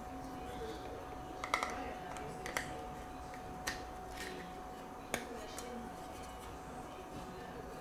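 White plastic parts of a model airliner's display stand clicking and tapping as they are handled and fitted together: about six short, sharp clicks spread over several seconds, over a faint steady hum.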